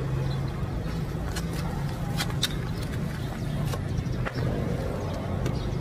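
A steady low hum of a running engine, with a few light clicks and taps of handling over it.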